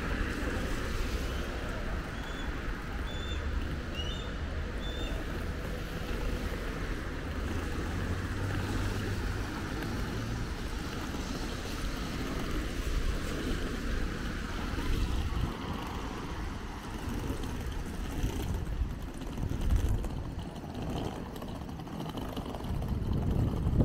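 Steady city traffic noise: a continuous low rumble and hiss of passing vehicles. A few faint high chirps come a few seconds in.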